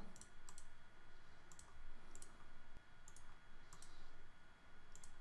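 Computer mouse button clicked several times, the clicks often in quick pairs, while folders of sequencing reads are added in the software.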